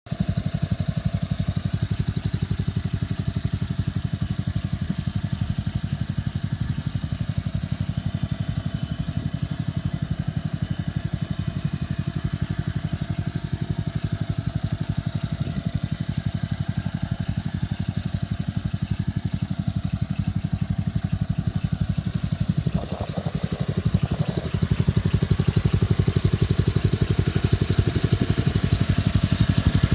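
Kawasaki 12.5 HP single-cylinder engine of a Wheel Horse 252H lawn tractor running steadily with an even, fast firing beat. It gets somewhat louder about three-quarters of the way through.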